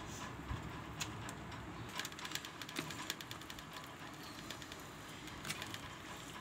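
Fingers mixing rice and curry on a plate, a run of small wet clicks and squelches, thickest about two to three seconds in.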